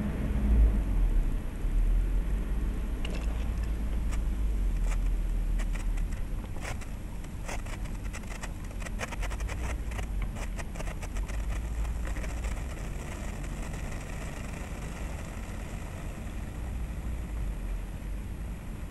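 Senko hanabi (Japanese thread sparkler) spitting sparks with rapid little crackling snaps, densest from about three seconds in to about two-thirds through, then thinning out, over a steady low rumble.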